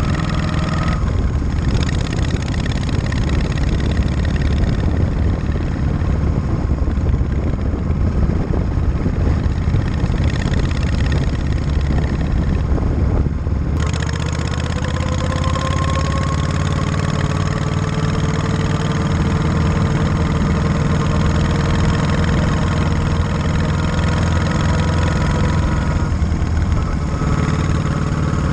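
A 1937 Matchless Model X side-valve V-twin motorcycle engine running on the road, its note rising and falling. About fourteen seconds in the sound changes abruptly, and then the engine's pitch climbs steadily for a few seconds.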